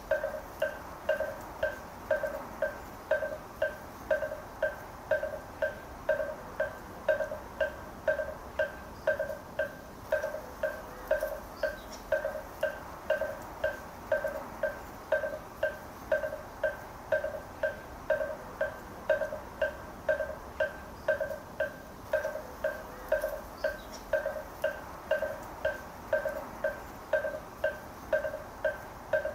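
Moktak, the Korean Buddhist wooden fish, struck at a steady even pace of about two strokes a second, each stroke a short pitched knock.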